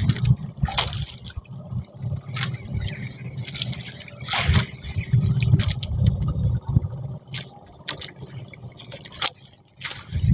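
Water splashing and dripping around a small fishing boat, with scattered sharp knocks and splashes. The biggest splash is about halfway through, over a steady low rumble.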